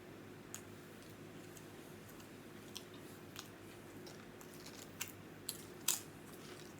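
A person chewing a mouthful of Italian hoagie: a handful of soft, scattered mouth smacks and clicks, the loudest near the end, over a steady low hum.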